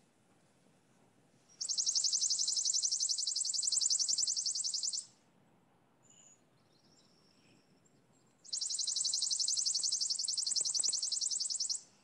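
Worm-eating warbler singing: two dry, insect-like trills of rapid high notes, each lasting about three and a half seconds, with a few seconds' pause between them.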